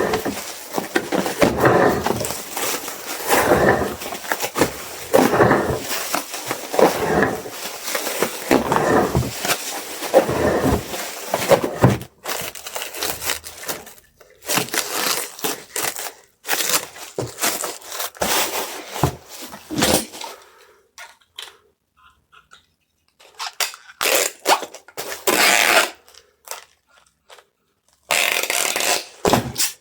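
Packaging being handled during order packing: continuous rustling and crinkling, then separate short bursts of handling noise with a brief quiet pause past the middle.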